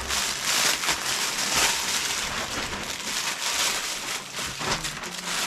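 Irregular rustling and crinkling as a stuffed toy is pulled out of its wrapping or bag and handled, a dense crackly hiss with many short crinkles.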